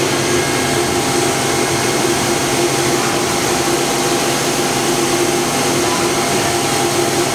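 Hitachi Seiki HT-20SIII CNC turning center running with its spindle at about 2800 rpm: a steady mechanical hum with several steady tones.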